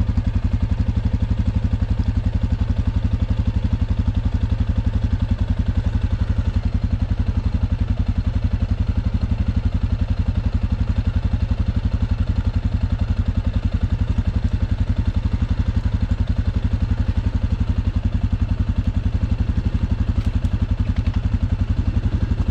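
ATV engine idling steadily, an even low pulsing throb with no revving.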